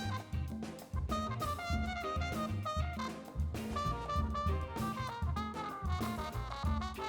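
Background music: jazz-style instrumental with a brass melody over drums and bass, keeping a steady beat.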